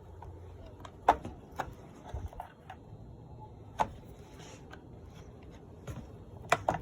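A few sharp plastic clicks and taps, spaced out, with a quiet stretch in the middle. They come from the clips of a car's interior fuse panel housing as it is pried apart.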